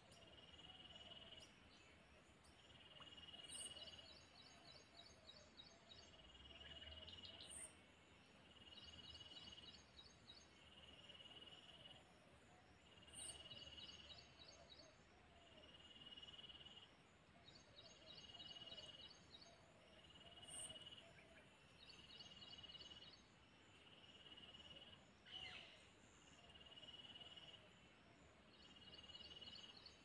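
Near silence with faint insects chirping, a rhythmic pulse repeating about every two seconds, and one faint click near the end.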